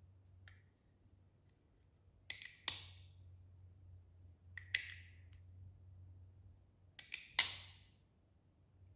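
Reconstructed Messerschmitt Me 262 nose-section tension latch (Spannverschluss 10 LWKN 16415), zinc-plated steel and spring-loaded, worked by hand. It gives three sharp metallic snaps about two and a half seconds apart, each made of two or three quick clicks with a short ring.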